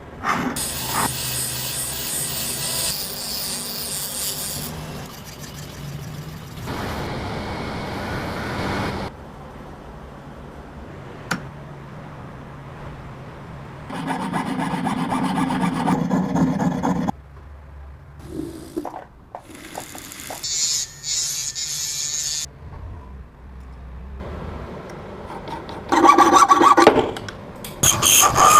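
Hand-tool shaping work, rasping, filing and sanding strokes, heard as several separate passages a few seconds long with abrupt changes between them and short quieter stretches with scattered clicks.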